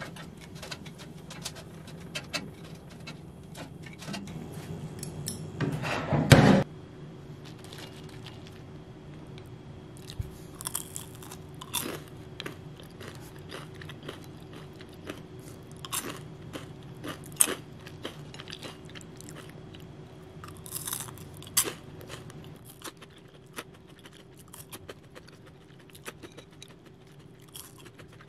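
Crunchy oven-reheated crinkle-cut fries being bitten and chewed, in short, sharp crunches every second or two. About six seconds in there is a single loud knock.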